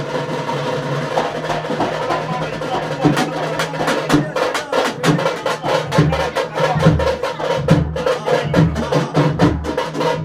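Fast, loud temple-festival drumming with many rapid strikes. Deep bass drum beats come in about six seconds in, over a steady humming tone.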